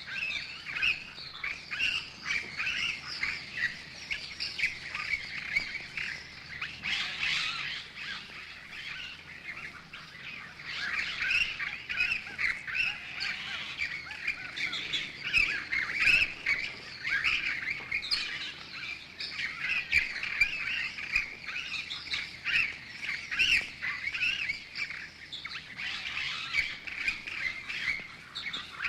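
A flock of birds squeaking and chirping in a dense, continuous chatter of overlapping high calls.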